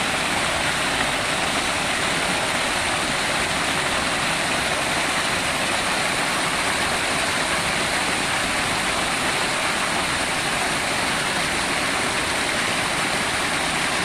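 Water pouring over a small waterfall into a shallow stream: a steady, close rush of white water.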